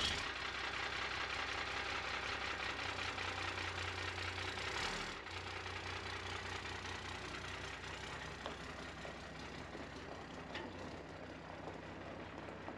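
A 1991 Dodge dually pickup's engine running steadily just after starting. About five seconds in the truck pulls away, and the engine sound slowly fades as it drives off.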